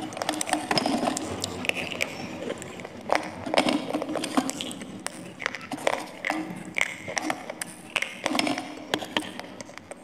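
Dry clay roll being snapped apart by hand and chewed: irregular sharp crunches and cracks, several a second, with wet mouth sounds between them.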